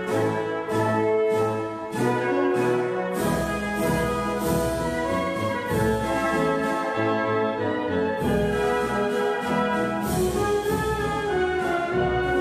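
Orchestral music led by brass: short, repeated brass chords, about two a second, for the first three seconds, then the full orchestra comes in with sustained chords over a deep bass.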